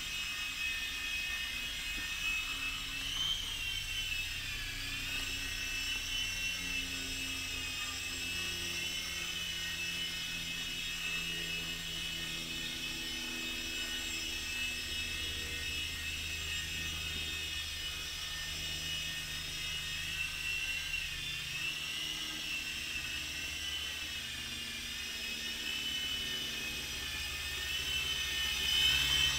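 Blade mCX2 ultra-micro coaxial RC helicopter in flight: its two micro coreless motors whine and the rotors whir steadily, the pitch of the whine wavering up and down as the motor speed changes, a little louder near the end.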